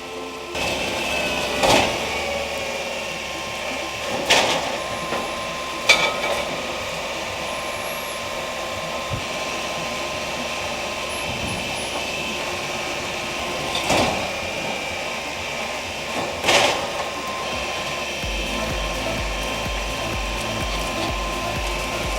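Mobile log debarker running steadily, its engine-driven rotating shafts stripping bark from a log, with several sharp cracks and knocks as the bark breaks away. A deeper hum comes in near the end.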